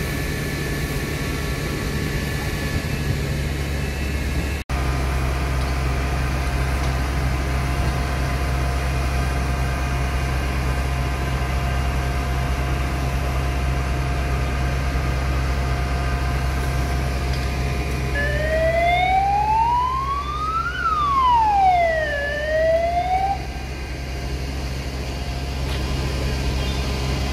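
Fire engines running at the scene with a steady low drone. About two-thirds of the way in, a siren wails up and down once.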